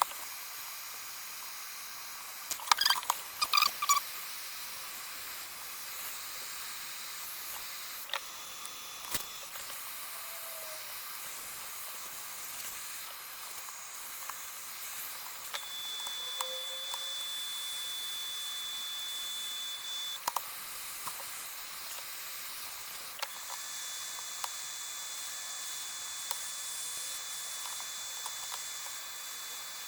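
Steady hiss with a cluster of clicks and scrapes about three seconds in and a few lone clicks later, as a prying tool works at the adhesive around the iPad Pro's screen edge. A faint high steady tone comes and goes in the second half.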